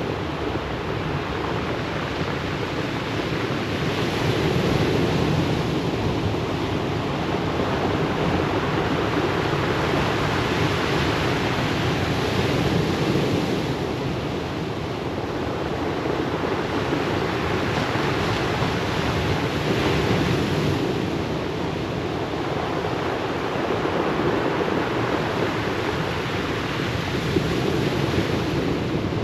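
Surf breaking and washing up a pebble beach, a steady wash that swells and falls back every few seconds.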